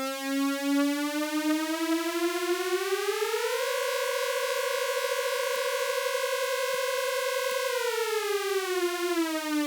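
Sustained synthesizer note from Native Instruments Massive with detuned unison voices, swept up an octave by a macro knob over about three seconds, held, then swept back down near the end, like a rising and falling siren. The unison detune widens as the pitch climbs, giving the uplift riser its thick, beating sound.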